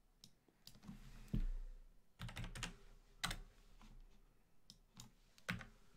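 Typing on a computer keyboard: faint, irregular keystrokes, a few at a time, as numbers are keyed in.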